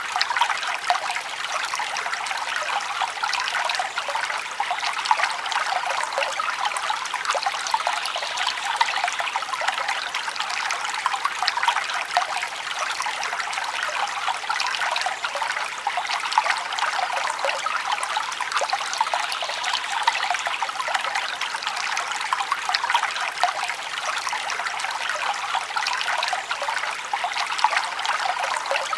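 Small forest stream babbling and trickling steadily over stones, a constant close splashing with tiny fast flickers of water.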